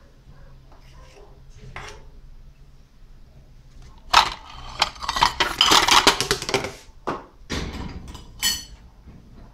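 Dishes clattering as a plate is fetched and set down on the gas stove, with the wooden spoon laid on it. The clatter starts with a sharp knock about four seconds in and runs as dense clinking for a couple of seconds, and two more knocks follow near the end.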